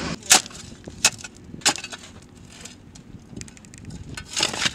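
A shovel digging into dry, sandy, gravelly dirt: three sharp scrapes about two-thirds of a second apart, then a longer scrape near the end.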